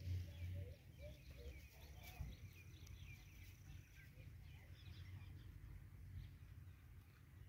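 Small birds chirping faintly in quick, scattered calls, thinning out after about five seconds, over a steady low rumble.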